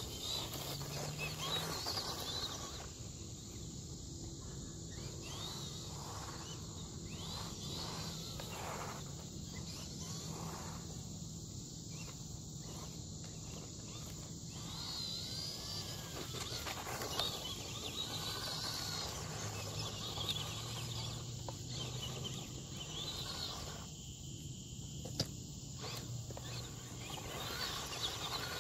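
Outdoor ambience: birds chirp every few seconds over a steady high insect drone, with a faint low hum and a few sharp ticks.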